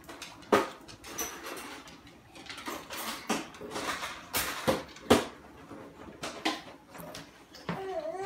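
Plastic bowl and spoon clattering as a toddler eats: scattered sharp knocks and clicks of the spoon and bowl against the high-chair tray and each other, the loudest about half a second in and again about five seconds in. Near the end a short wavering whine.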